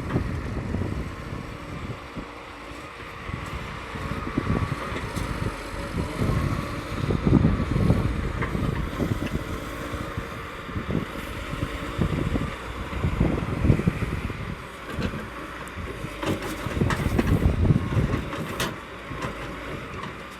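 A heavy vehicle's engine running steadily, with irregular gusts of wind buffeting the microphone.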